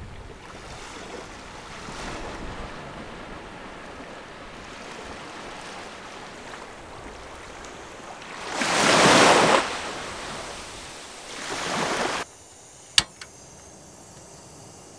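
Small waves washing onto a sandy beach, with two louder surges of surf breaking in, one about two thirds of the way through and a shorter one just after. The surf then cuts off suddenly to a quieter background with a single sharp click.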